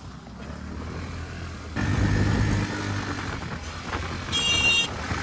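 ATV engine running, getting louder about two seconds in as it picks up throttle, with a brief high-pitched tone about four and a half seconds in.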